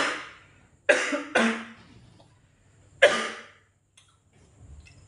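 A man coughing hard four times: three coughs in quick succession, then a longer gap before the fourth.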